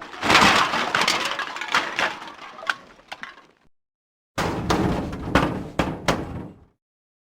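Two separate metal crash sound effects: a crash with a scatter of clinks and rattles that dies away over about three and a half seconds, then after a short silence a second clattering crash lasting about two seconds.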